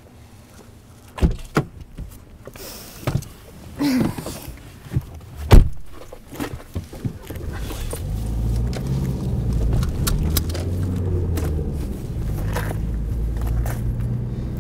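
Car door and handling sounds as a passenger gets in: a string of clicks and knocks, with a loud door slam about five and a half seconds in. From about eight seconds a car engine hums steadily and low as the car drives.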